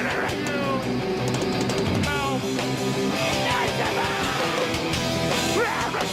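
Live metalcore band playing loud electric guitars, with no vocals. A few sliding notes fall in pitch, one at the start and one about two seconds in.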